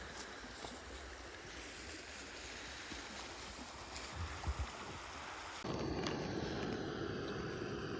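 Steady rushing of river water with wind buffeting the microphone, a few low bumps about four seconds in. The rush turns abruptly louder about two-thirds of the way through.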